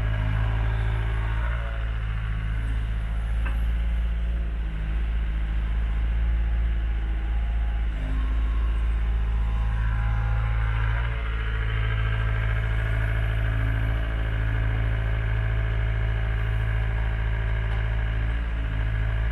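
Diesel engine of a Wacker Neuson 75Z3 compact excavator running steadily as it digs soil and loads it into a trailer.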